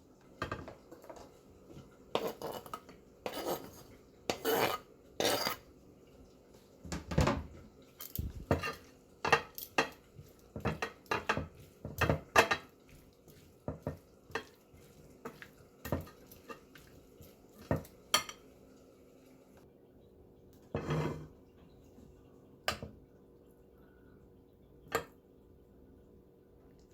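Cutlery clinking and scraping against a dish in irregular taps, closely spaced for most of the stretch, then thinning to a few scattered clinks near the end.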